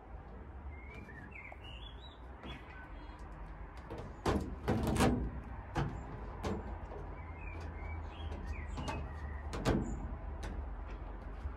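Foil-faced insulation liner crackling and rustling as hands press and smooth it onto a van's bare metal side panel. The crackles are loudest about four to five seconds in and again near ten seconds. Birds chirp in short phrases in between.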